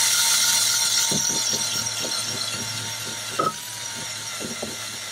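DeWalt 20V MAX cordless drill spinning a wire brush wheel against a boat propeller blade to clean it: a steady high whine with the hiss of bristles on metal and scattered light knocks. The whine stops about four seconds in.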